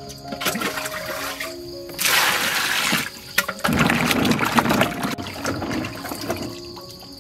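Water pouring into a plastic basin of arrowroot rhizomes for about a second, then hands sloshing and rubbing the rhizomes in the water to wash them.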